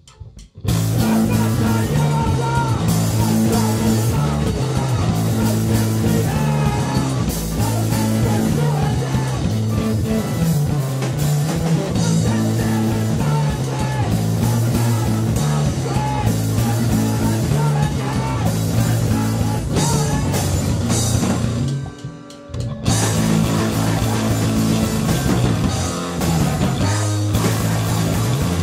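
A rock band playing live: loud electric guitar, bass and drums come in about half a second in. They stop briefly about three-quarters of the way through, then crash back in.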